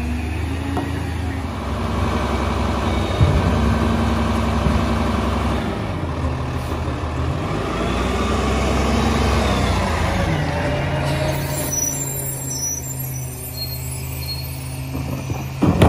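Peterbilt 348 rear-load garbage truck's engine rising in speed, holding, and dropping back, twice over, then running steadily at a lower speed, with some air hiss.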